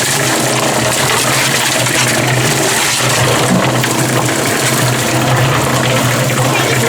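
Concrete mixer running: its motor gives a steady low hum while sand and water tumble in the turning drum.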